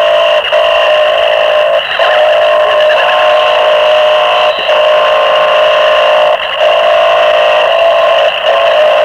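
Harsh noise music from a cassette demo: a loud, dense wall of distorted electronic noise with steady droning tones, broken by short dropouts every couple of seconds.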